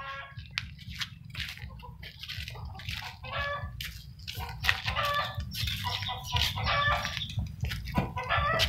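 Short animal calls, repeated many times and coming thicker in the second half, over a steady low hum.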